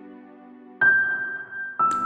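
Slow, calm instrumental background music with held notes. A new note sounds sharply about a second in, and another near the end.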